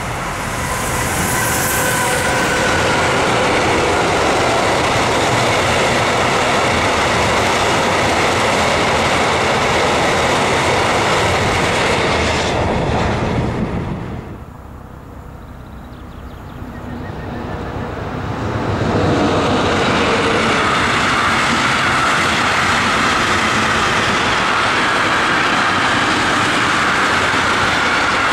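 A freight train hauled by an electric locomotive running past close by, with steady wheel and wagon noise and clickety-clack. It fades to a lull about halfway through, then a second, long intermodal freight train of truck-trailer wagons comes past just as loud.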